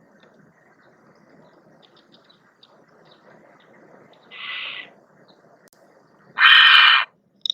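Barn owl calling: two harsh, hissing shrieks, a short one about four and a half seconds in and a louder, longer one near the end.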